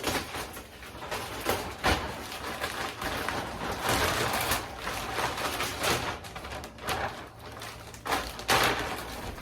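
Irregular knocks, thuds and scraping as shelving pieces are handled and set in place, with two sharper knocks about two seconds in and near the end.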